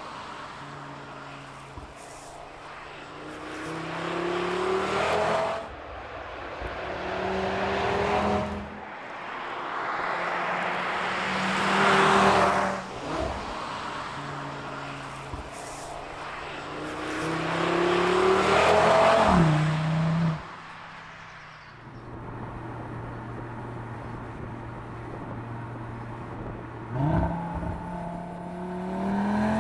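Audi RS 3's turbocharged five-cylinder engine and exhaust accelerating hard several times, the note climbing in pitch and dropping back at each gear change. Partway through it settles into a steady low drone for several seconds, then a sharp rev and another pull near the end.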